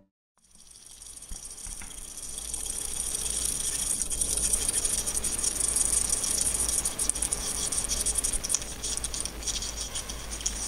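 A dense, fluttering crackle that fades in over the first couple of seconds and then holds, with a low steady hum beneath.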